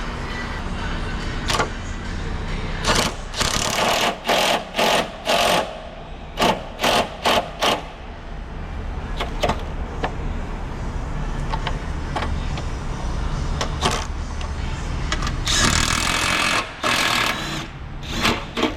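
A power driver run in short trigger pulls, about ten quick bursts between about three and eight seconds in, then one longer run of nearly two seconds near the end, driving in fastening bolts. A steady low hum lies underneath.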